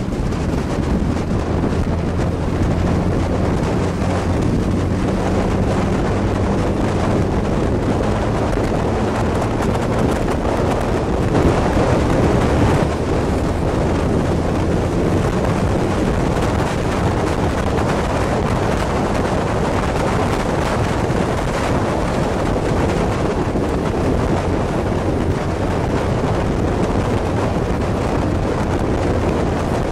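Steady wind noise on the microphone of a camera riding on a moving motorcycle, with the motorcycle's engine running at an even speed underneath. The engine's hum is clearer in the first twelve seconds or so, then sinks into the wind.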